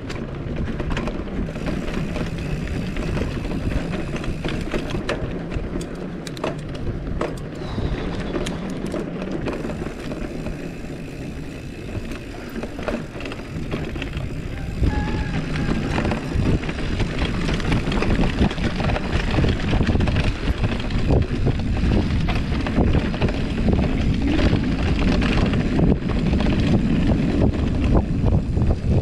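GT Avalanche hardtail mountain bike riding over a rough dirt and gravel trail: tyres rumbling over the ground, with many short rattles and clicks from the bike as it goes over bumps. Louder from about halfway through.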